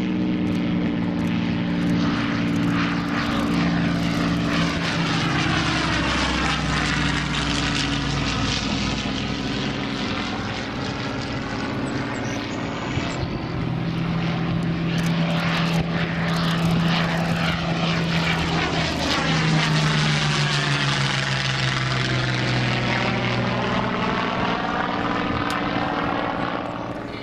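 Hawker Hurricane fighters' Rolls-Royce Merlin V12 engines running as the aircraft fly past. The steady engine drone drops in pitch twice as each goes by, about a fifth of the way in and again about three quarters of the way in.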